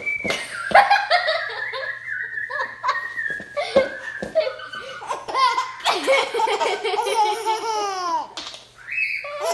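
Baby laughing and squealing in repeated bursts of giggles; between about six and eight seconds a long laugh slides down in pitch.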